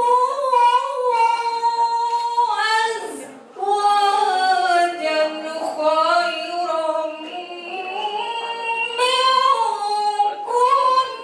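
A woman chanting Qur'an recitation (qiroah) into a microphone, unaccompanied. She draws out long ornamented phrases with slow glides in pitch and takes a short breath about three and a half seconds in.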